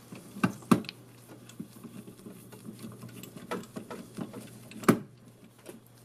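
Screwdriver turning a spring-loaded heatsink mounting screw on a CPU cooler: faint rapid ticking and scraping, with a few sharp clicks, the loudest about five seconds in.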